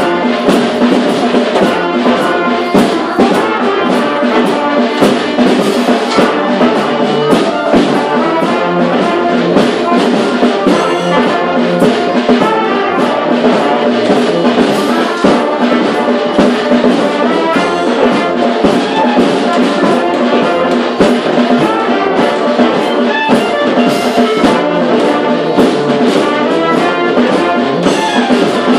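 Brass street band playing a cumbia tune together, the horns carrying the melody over a steady drum beat.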